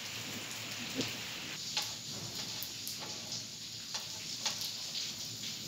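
Rain with hailstones falling: a steady hiss of the downpour, with irregular sharp taps and clicks as the hailstones strike.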